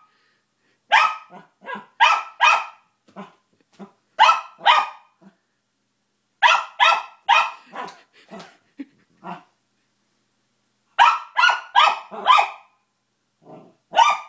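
Small dog barking sharply in bursts of two to four quick barks, with pauses of a few seconds between bursts.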